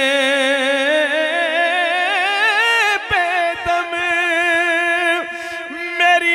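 A male voice sings an Urdu naat, holding one long ornamented note that wavers and rises in pitch over the first three seconds. Then the melody carries on over a steady, lower drone.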